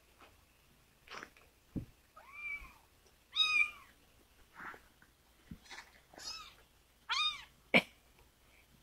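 Bottle-fed kittens mewing: about four short, high, arching mews with a couple of fainter ones, the loudest about a third of the way in. A few soft knocks come in between.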